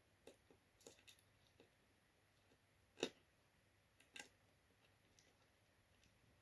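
Faint, scattered clicks and taps of small metal CPU-cooler mounting parts and screws being handled and tightened by hand, with one sharper click about three seconds in and a double tap about a second later.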